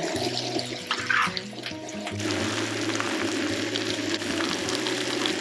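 Ground pork, onion and carrots sizzling steadily on a hot skottle griddle, with a metal spatula scraping through them about a second in.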